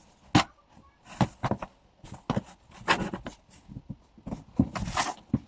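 Irregular knocks, clicks and short rustles in a small room, about a dozen of them spread unevenly, as things are handled and set down.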